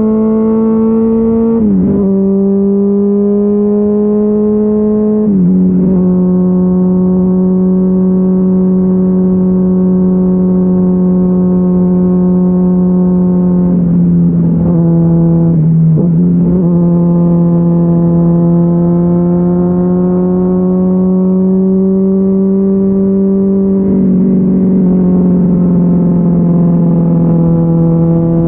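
Honda CBR600RR's inline-four running through a GPR Deeptone exhaust with its dB-killer removed. It holds a steady, even engine note that drops in pitch a few times: shortly after the start, about five seconds in, twice briefly around the middle, and near the end.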